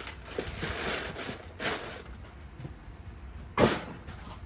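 Rustling and handling of shipping packaging around potted orchids, with one sharp, loud bump about three and a half seconds in.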